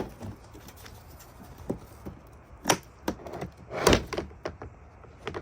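A few sharp knocks and clunks of a plastic rear diffuser being pulled at by hand, the heaviest thump about four seconds in.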